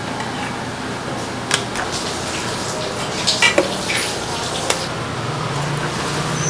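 Steady workshop hum with a few light clicks and taps as plastic tofu trays are handled and set down on a stainless-steel counter.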